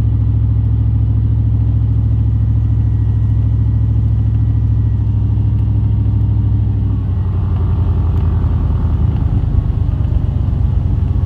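Truck engine and road noise heard from inside the cab while driving: a steady low drone whose note changes and turns rougher about seven seconds in.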